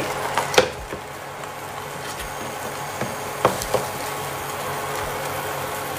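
Beaten egg sizzling in oil in a non-stick frying pan, with sharp taps of a wooden spatula against the pan: one about half a second in and two more close together a little past the middle.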